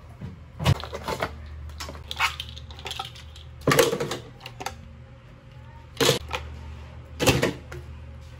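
Hard plastic household items being handled and set down on a kitchen counter: irregular sharp clacks and clatters, loudest in short clusters about a second, four seconds, six seconds and seven seconds in, over a steady low hum.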